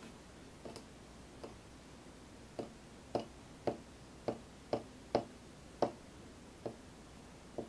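About ten light plastic clicks and taps, mostly about half a second apart, as a small super glue bottle is squeezed and its nozzle dabbed onto a 3D-printed PLA part to place drops of glue.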